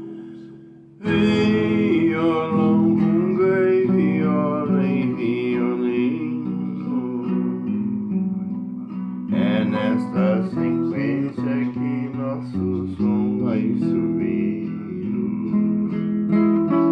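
Acoustic plucked-string instrument music: runs of picked notes over strummed chords. It fades out briefly and comes back in strongly about a second in, with a short dip around two-thirds of the way through.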